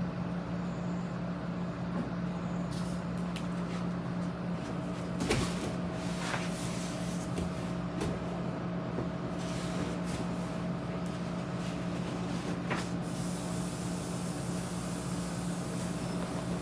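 A steady machine hum holding a constant pitch, with a few faint knocks: one about five seconds in and another near thirteen seconds.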